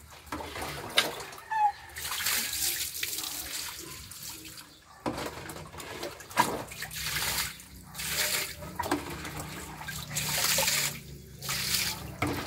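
Water poured from a jug over a cat in a wire cage, splashing through the bars onto the cat and the floor in several pours with short gaps between them.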